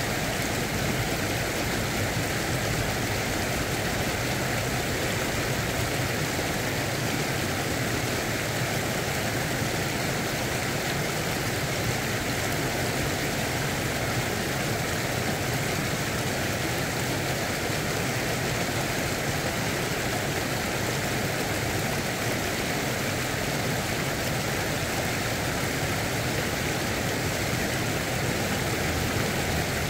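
Steady rush of river water spilling over a low weir and flowing past the bank.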